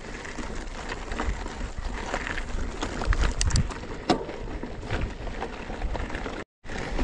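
Mountain bike rolling along a gravel track: tyres crunching and the bike rattling over stones, with scattered sharp clicks and wind rumbling on the microphone. The sound drops out for a moment near the end.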